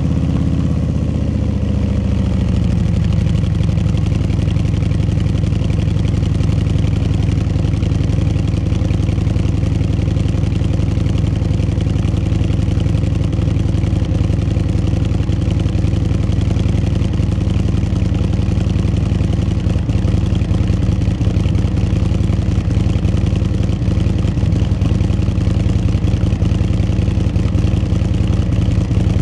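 Harley-Davidson V-twin running through Screaming Eagle titanium slip-on mufflers with the restrictors removed, and with the fiberglass packing removed from the left muffler. The engine is just after start-up: its pitch drops over the first couple of seconds as it settles into a steady, deep, throaty idle.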